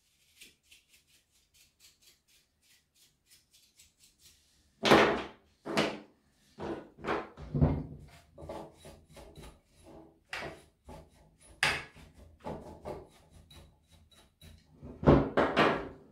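A paintbrush's bristles are swept quickly and lightly over a small Husqvarna chainsaw part to clear dust from the cooling system. From about five seconds in come irregular clunks, knocks and scrapes as the plastic and metal chainsaw parts are handled and set on a wooden table, the loudest near the start of this and again near the end.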